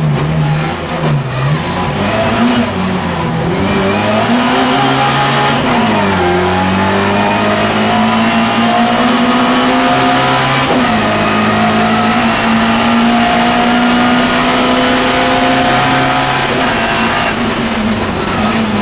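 Classic Mini race car's A-series engine, heard from inside the cabin, revving hard and pulling through the gears. Its pitch climbs steadily, drops sharply at gear changes about six and eleven seconds in, and falls away near the end as the driver lifts off.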